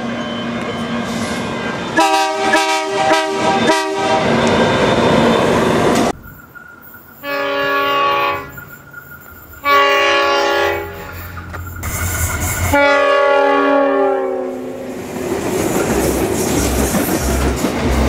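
Diesel freight locomotive horns: a quick run of short multi-note blasts about two seconds in, then three longer multi-note blasts from a second locomotive. After that, container wagons roll past, clattering over the rail joints.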